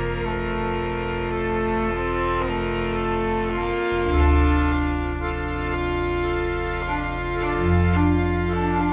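Instrumental music: an accordion playing held chords and a slow melody over low sustained bass notes, the bass changing about four seconds in and again near the end.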